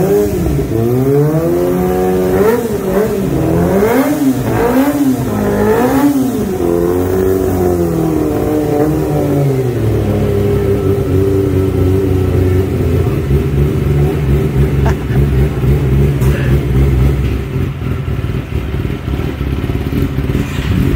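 Motorcycle engine revved again and again, each blip rising and falling in pitch. From about ten seconds in it is held at a steady speed, easing off slightly near the end.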